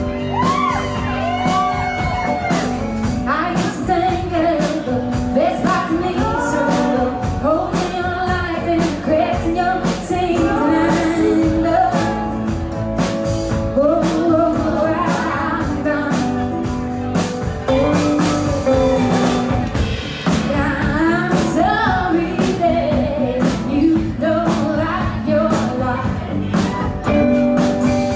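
Live band performance: a woman sings the lead vocal over her strummed acoustic guitar and the band, with a steady beat of sharp hits running through.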